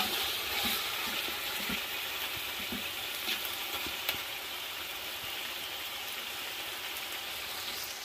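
Meat cooking in a large aluminium pot, a steady hiss of sizzling that slowly fades, with a few faint clinks of a slotted spoon stirring against the pot.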